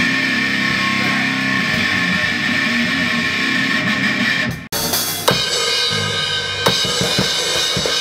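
Rock band rehearsing: electric guitar and a drum kit with cymbals playing a song together. About two-thirds of the way through the sound cuts out abruptly for an instant and resumes with sharper drum and cymbal hits.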